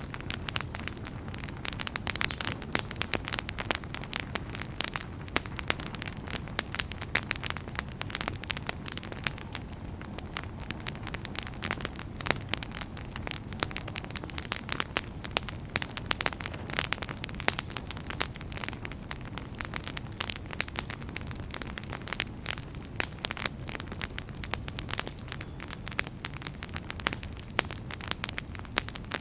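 Wood fire crackling and popping steadily, with many sharp irregular snaps over a low rumble of flames.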